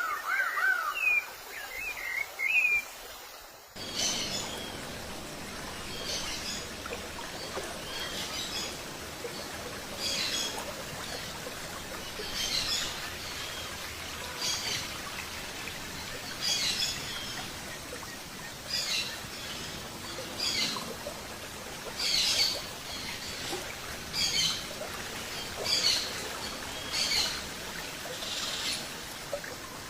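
Birds calling: a rapid warbling trill and a few high chirps, then, after an abrupt change about four seconds in, short sharp chirps repeating every second or two over a steady background hiss.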